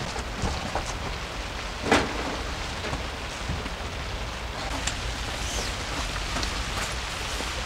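Heavy rain falling steadily on the tent fabric, heard from inside the tent, with a few light knocks and taps from handling gear, the loudest about two seconds in.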